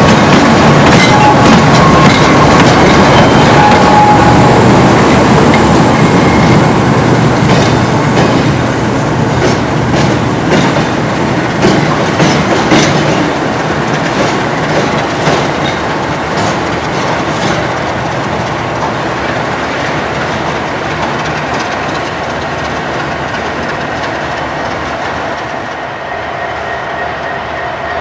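Sulzer-engined CFR Class 60 diesel-electric locomotive and its passenger coaches rolling past, wheels clicking over the rail joints. The train grows steadily fainter as it moves away.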